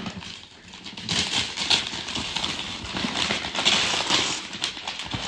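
Gift-wrapping paper being torn and crinkled by hand as a present is unwrapped: a busy run of paper rustling and tearing that picks up about a second in.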